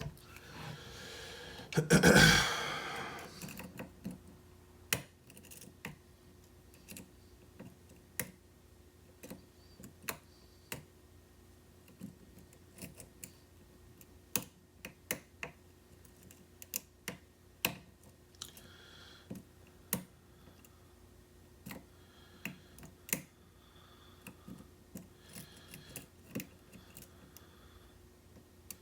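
Lock pick and tension wrench working the pins of a double-shear-line pin-tumbler challenge lock: scattered, irregular small clicks. A louder clatter comes about two seconds in.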